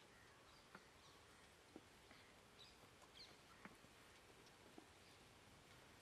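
Near silence: faint outdoor ambience with a few short, high bird chirps and several soft clicks.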